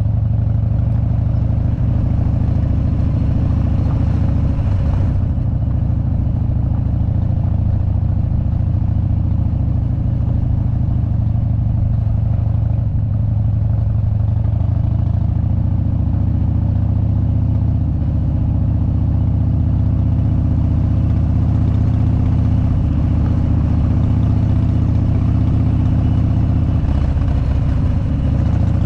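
Harley-Davidson big-twin V-twin motorcycle engine running steadily under way on a gravel road. Its low, even note shifts a little in pitch about halfway through and again near the end as the throttle changes.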